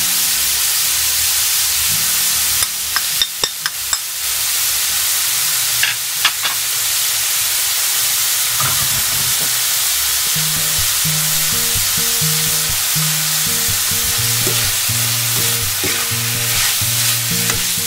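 Ground pork sautéing with onion and garlic in a wok, a steady sizzle. A metal ladle clinks against the wok several times about three seconds in and twice more near six seconds, then scrapes through the meat as it is stirred. Background music with a bass line comes in about nine seconds in.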